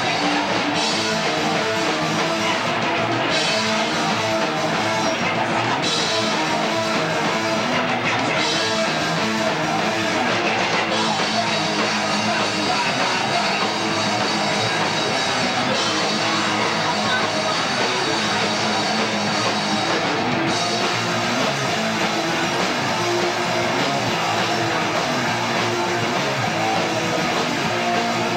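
Live rock band playing a song: electric guitars and a drum kit, a steady, dense wall of sound.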